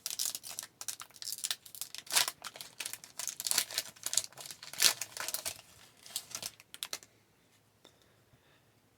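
Wrapper of a trading-card pack torn open and crinkled, with rapid crackling and rustling as the cards are handled; it stops about seven seconds in.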